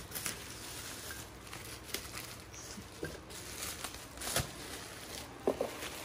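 Plastic bubble wrap crinkling and rustling as hands unwrap it, with a few sharp crackles scattered through.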